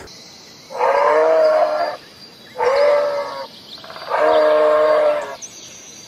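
A deer calling three times, each call pitched and drawn out for about a second, over a steady background hiss.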